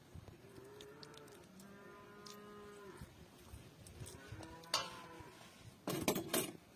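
A cow mooing: one long, drawn-out call in the first few seconds and a shorter call about four seconds in. A brief, louder noise follows near the end.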